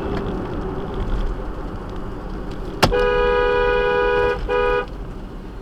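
Car horn honked in one long blast of about a second and a half, then a short second blast, two notes sounding together, over steady road noise; a sharp click comes just before the first blast.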